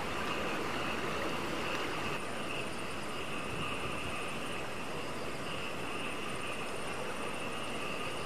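Night insect chorus: a steady shrill drone that swells and fades every second or so, with a fast pulsing high trill above it, over a constant rushing noise.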